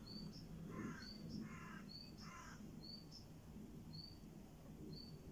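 Faint birdsong: a small bird repeats one short, high, slightly rising chirp about once a second. Three harsh caws come about one to two and a half seconds in.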